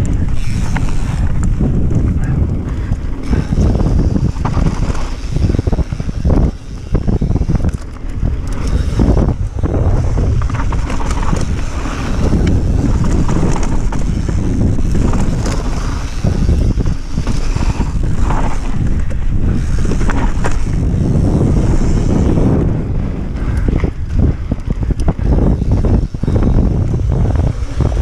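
Mountain bike descending dirt singletrack at speed: steady low rumble of tyres and bike over the trail, mixed with wind buffeting the microphone.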